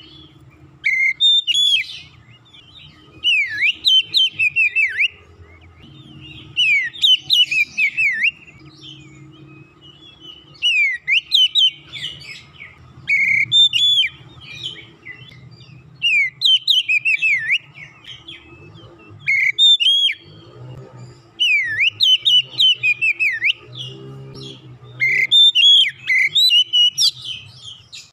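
Oriental magpie-robin singing in full song: about nine loud phrases of whistled notes with steep up-and-down sweeps, each phrase a second or two long, separated by short pauses.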